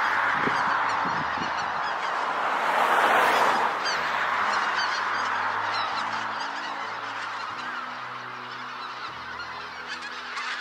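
A large flock of wild geese honking in a dense, overlapping chorus that grows fainter as the flock flies off. Soft music with long held notes comes in underneath about four seconds in.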